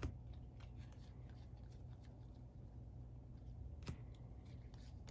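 2021 Panini Contenders football cards being flipped and slid against each other in the hands, making faint soft ticks and rustles, with one sharper click nearly four seconds in. A steady low room hum lies underneath.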